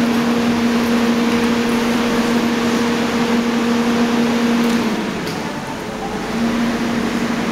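Steady machinery hum: a low drone over a broad rushing noise. The drone drops out and the level dips about five seconds in, then the drone comes back near the end.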